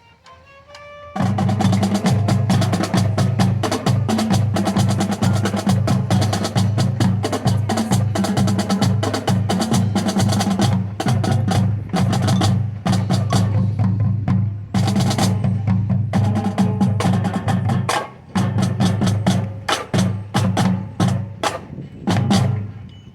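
Marching drumline of snares, tenor drums and bass drums playing a loud, fast cadence. It comes in sharply about a second in, breaks off briefly near eighteen seconds, and stops just before the end.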